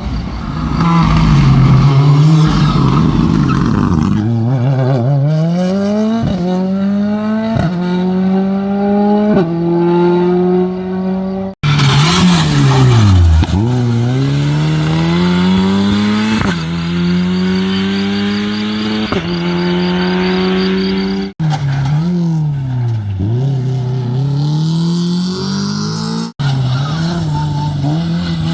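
Rally car engines accelerating hard through the gears, the pitch climbing and falling back at each upshift, with revs dropping away and rising again between runs. A rush of tyre and engine noise in the first few seconds. The sound breaks off abruptly three times where clips are cut together.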